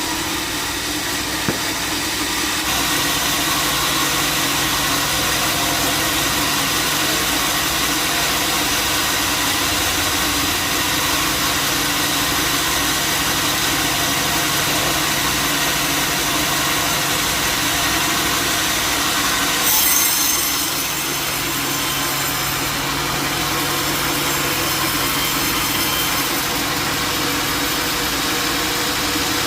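Sawmill saw cutting steadily through a log, with the mill's engine running underneath; a brief brighter, higher rush of sawing noise comes about two-thirds of the way through.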